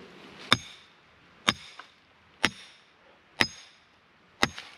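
Hammer striking a wooden stake to drive it into the ground as a grade pin: five evenly spaced blows about a second apart, each with a short ring.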